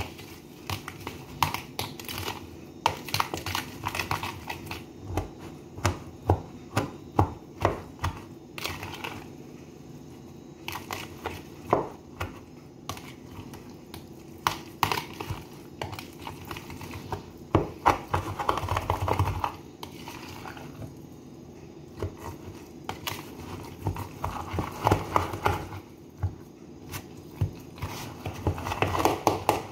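A spoon stirring and scraping a moist stuffing mixture in a plastic measuring jug, with irregular clicks and scrapes against the jug's sides and bottom and a few busier spells of quicker stirring.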